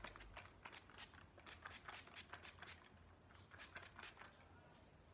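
Faint, rapid spritzes of a handheld spray bottle misting water onto hair: short hissing puffs about three a second that stop about four seconds in.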